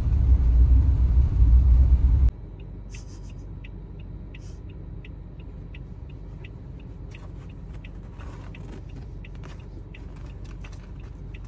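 Inside a car: loud low road rumble for the first two seconds, then, after a sudden drop, a quieter steady engine hum with a regular ticking of about two to three ticks a second, typical of a turn-signal indicator.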